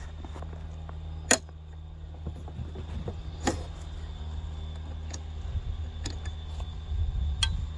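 A few sharp plastic clicks and knocks as a Starlink dish's mast is worked loose from its black plastic tripod mount, the loudest about a second in, over a steady low rumble.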